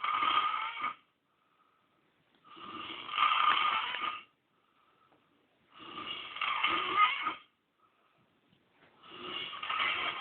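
A man snoring in his sleep, one snore about every three seconds with quiet breaths between.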